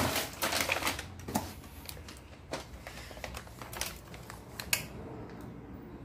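Handling noise from a cardboard box and its plastic packaging as a motorcycle muffler is moved about: rustling with a quick run of light clicks and knocks, busiest in the first second or so, then scattered single clicks, the sharpest near the end.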